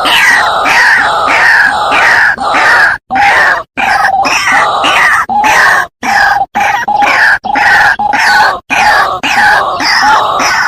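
White-breasted waterhen (ruak-ruak) calling: loud, harsh notes repeated about two a second, broken by a few sudden short silences.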